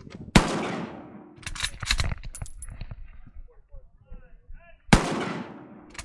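Two shots from a Chinese Type 53 Mosin carbine in 7.62x54R, about four and a half seconds apart, each with a long fading echo. Between them come a quick cluster of metallic clicks as the bolt is worked.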